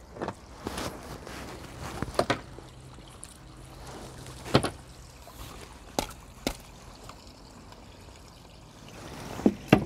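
Water dripping from a landing net, broken by a handful of sharp knocks and clicks of fishing tackle being handled. The loudest is a close pair near the end.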